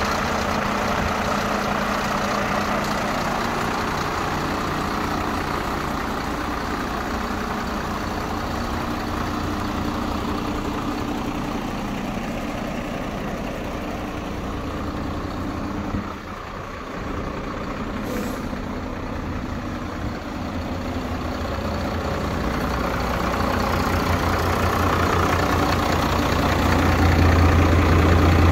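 Iveco Stralis 350 hooklift truck's diesel engine idling steadily. Its low hum grows louder near the end.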